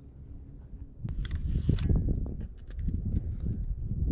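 Mamiya RZ67 Pro II medium format film camera being handled up close, its knobs turned with runs of small mechanical clicks over a low rumble of handling noise.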